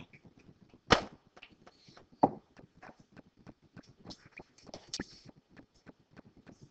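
Two sharp knocks, about a second and about two seconds in, over many faint clicks and taps in a classroom.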